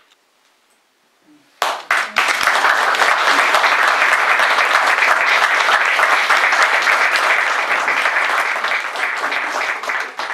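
An audience applauding. After about a second and a half of near quiet, clapping breaks out all at once and stays dense and steady, beginning to thin out near the end.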